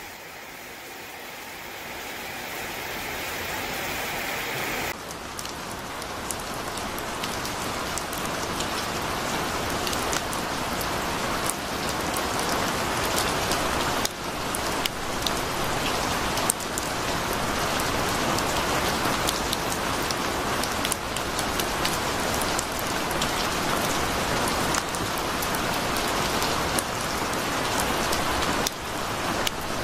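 Torrential rain pouring steadily, a dense hiss of rain with many small drop impacts. It is softer for the first few seconds, then turns suddenly louder and denser about five seconds in.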